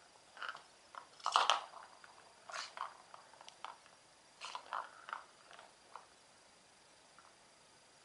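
A cat pawing and scrabbling at a plastic circular ball-track toy: a string of short scratching and clattering noises, loudest about a second and a half in, dying away after about six seconds.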